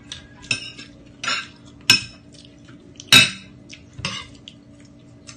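Metal spoon and fork clinking and scraping against a plate while eating: about six short, separate clatters, the loudest about three seconds in.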